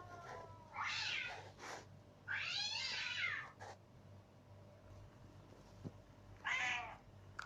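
A cat meowing three times: a short call about a second in, a longer meow that rises and falls from about two and a half seconds in, and a short one near the end.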